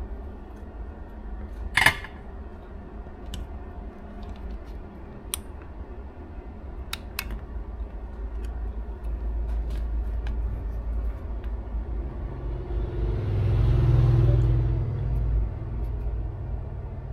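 Low steady background rumble with a sharp click about two seconds in and a few lighter clicks as tools and test probes are handled on a workbench. Near the end a low hum swells up and fades away.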